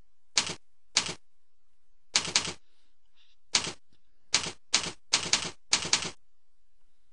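Computer keyboard keys being typed one at a time, about eleven loud separate keystrokes at an uneven pace, some in quick pairs, as a password is entered.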